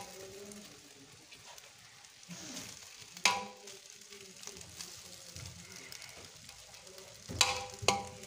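A steel spoon stirring rice in a large metal pot, with a faint steady hiss underneath. The spoon strikes the pot with a ringing metal clink about three seconds in and twice in quick succession near the end.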